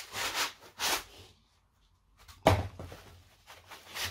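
Foam packing insert rubbing and scraping against a cardboard box as it is lifted out, in short rustles. A sharp thump comes about two and a half seconds in, followed by more rustling.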